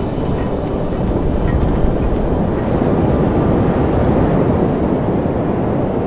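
Surf breaking and washing up a sandy beach close by: a steady low rush of waves that swells a little through the middle.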